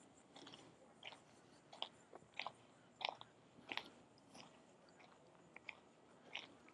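Faint footsteps crunching on a trail, one step about every two-thirds of a second at a steady walking pace.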